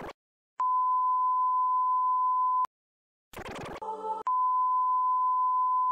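A steady single-pitch electronic beep tone, like a censor bleep or test tone, held for about two seconds and cut off sharply. After a short pause and a brief burst of another sound effect, the same tone starts again about four seconds in.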